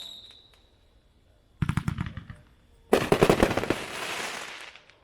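500-gram multi-shot consumer fireworks cake firing. A high whistle dies away at the start, then a quick string of sharp reports comes about one and a half seconds in. A denser rapid volley of cracks follows about three seconds in and fades out near the end.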